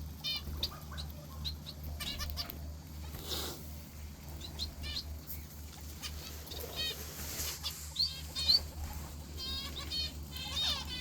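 Finch giving short, repeated chirping calls, some single and some in quick runs, over a steady low hum.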